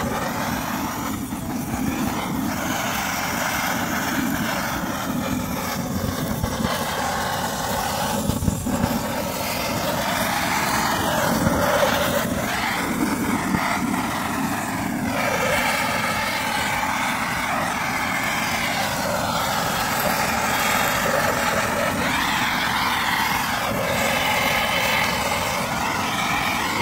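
Handheld gas blowtorch burning with a steady hiss as its flame is played over skewered meat on a grill to sear it.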